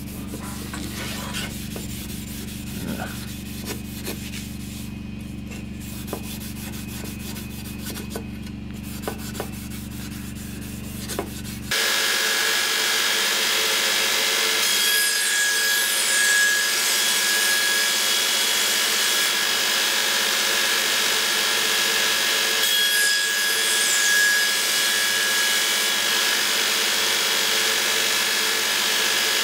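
For the first twelve seconds, a steady low hum with a few faint clicks; then, suddenly, an HBM belt grinder running, a steady whine over a hiss, as the steel cutlass blade is ground on its abrasive belt.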